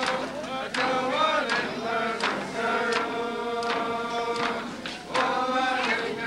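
Yup'ik dance song: a group of voices singing in unison in long held notes, with a frame drum beat struck steadily about once every three-quarters of a second.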